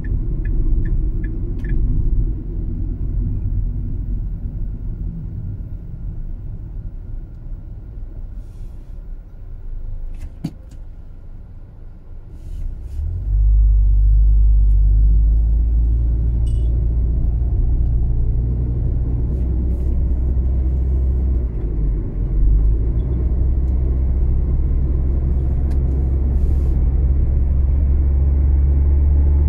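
Steady low rumble of a car's engine and tyres heard from inside the cabin while driving. A fast, even ticking sounds for the first two seconds; the rumble dips around the middle, then turns into a much louder steady low drone about halfway through.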